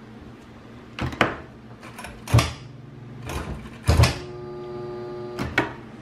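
A few sharp clicks and knocks, then, about four seconds in, a steady electrical buzz from the dishwasher's wash motor for about a second and a half before it cuts off: the motor is trying to start but sounds locked up (seized).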